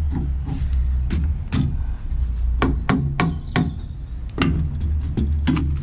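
Hammer blows on metal, about a dozen sharp, irregularly spaced strikes with a short ring, as a new tapered steel wedge is driven into a post leg vice's fitting.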